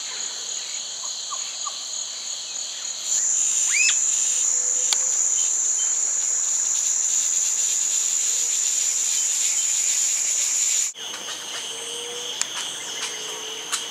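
Steady, high-pitched drone of forest insects, louder from about three seconds in, then cutting off abruptly near eleven seconds to a slightly lower insect drone. A brief rising bird call near four seconds.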